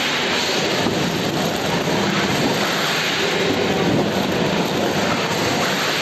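Snack packaging line running, its conveyor and machinery making a steady mechanical noise.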